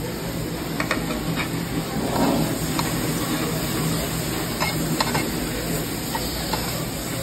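Chicken pieces sizzling on a hot stainless-steel tabletop Korean barbecue grill plate, with metal tongs clicking and scraping against the plate a few times as they spread the meat.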